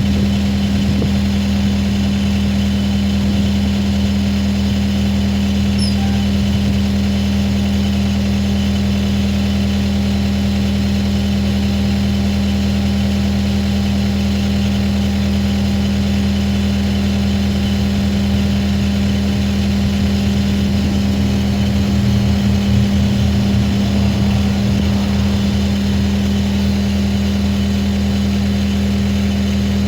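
Skid steer engine running at a steady idle, with a constant low hum.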